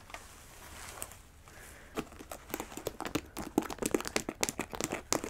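Long fingernails tapping and scratching rapidly on a jewel-studded, embroidered fabric boot held close to the microphone. The boot is first handled with a soft rustle, and the quick clicking taps start about two seconds in.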